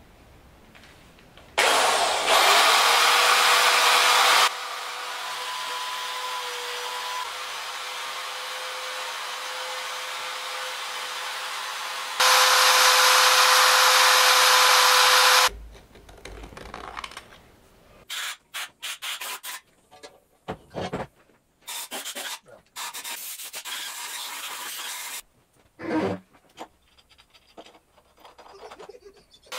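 Corded electric drill spinning a wire brush and an abrasive brush against a cast-iron cylinder head to clean it. The motor whine comes up to speed about two seconds in, with loud brushing about two and twelve seconds in and quieter running between. Near the end there are only short bursts of the drill and handling knocks.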